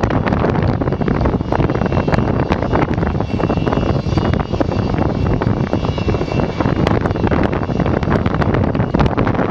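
Antonov An-225 Mriya's six turbofan engines running as the aircraft rolls past: a loud, dense rumble with a faint high whine through the middle.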